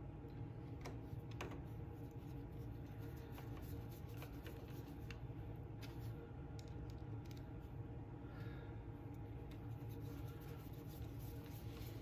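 Faint, irregular clicks and scrapes of a screwdriver turning the small screws that hold the mesh rotating screen onto a Briggs & Stratton engine's flywheel, metal tool on metal. A steady low hum runs underneath.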